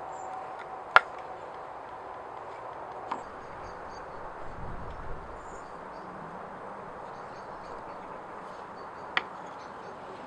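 A few sharp wooden knocks and clicks as a knife and carved wooden sheath pieces are handled on a wooden bench: the loudest about a second in, a lighter one about three seconds in and another near the end, over a steady soft hiss.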